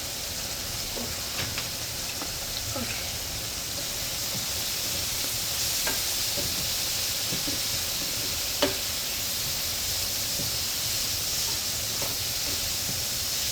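Tiny bay scallops sizzling in hot oil in a frying pan: a steady hiss that grows a little louder partway through, with scattered small clicks and one sharper click about two-thirds of the way in.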